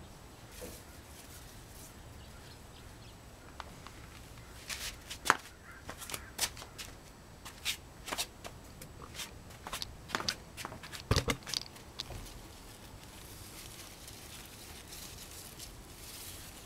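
Scattered rustling, crackling and tapping of leafy tomato plants and raspberry canes being pushed aside and handled by hand, busiest through the middle, with a couple of sharper snaps.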